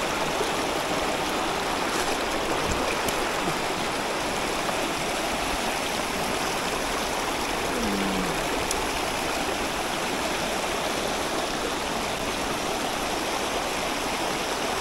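Shallow river rapids rushing over and between boulders: a steady, even rush of white water.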